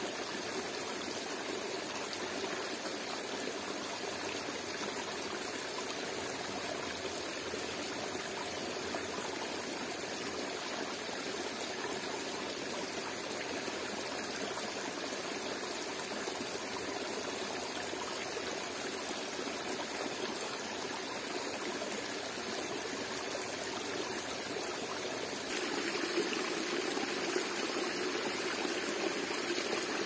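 Steady rushing of a forest waterfall and its stream, an even unbroken wash of water noise that gets a little louder about 25 seconds in.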